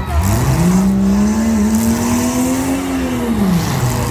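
Compact demolition-derby car's engine revving hard: it climbs sharply, holds high for about three seconds, then drops back near the end.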